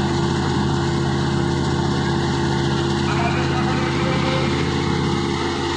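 An engine running steadily at constant speed, an even hum with a fast flutter.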